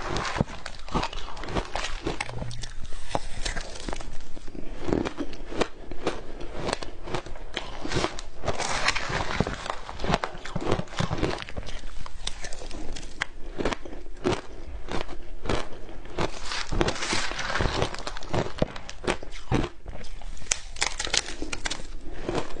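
Frozen matcha ice being bitten off a metal spoon and chewed, a rapid, continuous run of crackling crunches.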